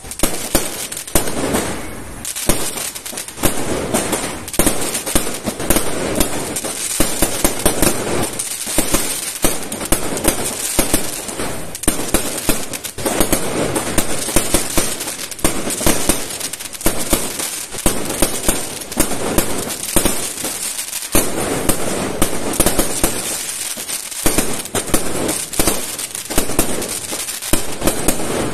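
Aerial fireworks bursting overhead in quick succession: a continuous barrage of sharp bangs and crackling pops, several a second, with no real pause.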